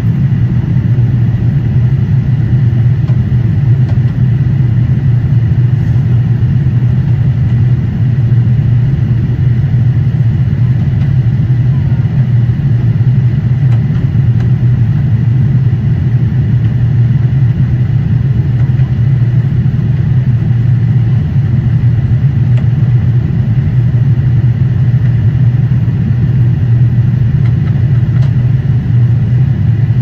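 Steady jet airliner cabin noise in cruise flight: a loud, even low drone from the engines and airflow, heard from inside the cabin, with a faint steady high whine above it.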